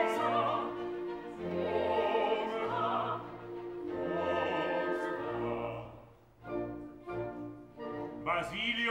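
Operatic singing with vibrato over a classical orchestra with strings. About six seconds in the singing drops away and the orchestra plays short, separated chords, then the music swells again near the end.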